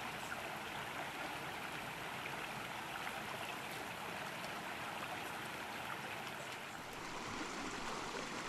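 Small rocky mountain brook running over stones: a steady, even babble of flowing water.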